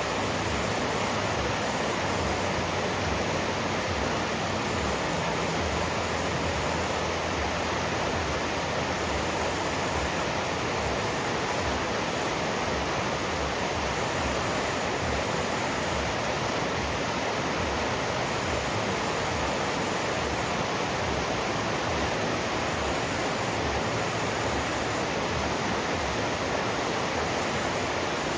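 River water rushing: a steady, even rush with no breaks or separate splashes.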